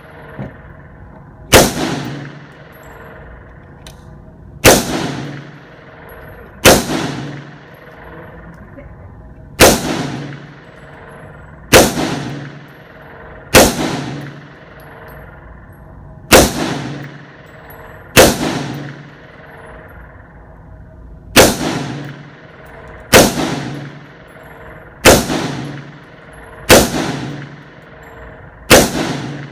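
Gunshots fired one at a time at a steady pace, thirteen shots roughly two seconds apart, each sharp crack followed by a ringing echo tail.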